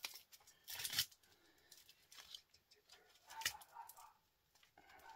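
Gloved hands handling and pulling wire from small scrap transformers: faint rustling with a few short clicks and ticks, the loudest about a second in.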